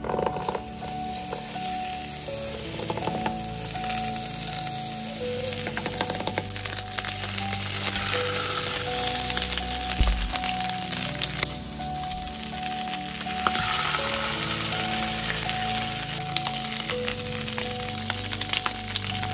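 Whole rainbow trout frying in melted butter in a nonstick frying pan: a steady sizzle with many small crackling pops. The sizzle dips briefly a little past halfway, and there is a dull thump near the middle.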